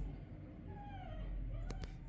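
A cooler running with a steady low hum. About a second in, a short high call slides down in pitch, and a few sharp clicks come near the end.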